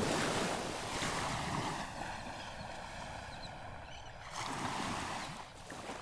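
Small waves washing in over a shallow beach, with two swells of surf: one at the start lasting about two seconds, and another about four and a half seconds in. Some wind noise on the microphone runs underneath.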